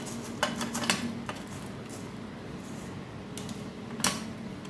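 Metal kitchenware clinking against a stainless steel pan as fried idli pieces are tipped in from a mesh strainer. There is a cluster of sharp knocks about half a second to a second and a half in and another near the end, over a steady low hum.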